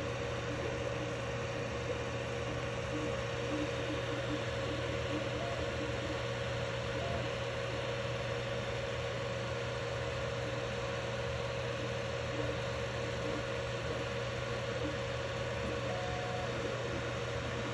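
3D printer running a print: the steady whir of its cooling fans over a constant hum, with short faint whines from the stepper motors as the print head and bed move.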